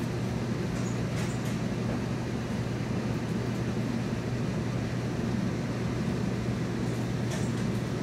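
Steady machine hum with a strong low drone that does not change, and a few faint ticks about a second in and again near the end.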